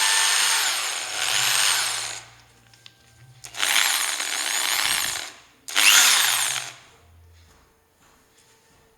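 JLD electric impact drill running with no load in three trigger bursts, its motor whine rising as it speeds up and falling as it spins down each time. The drill has just been switched to reverse rotation.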